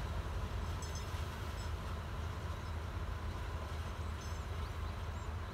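Diesel locomotive engine running with a steady low rumble as it hauls the grain train slowly along, with a few faint short high squeaks over it.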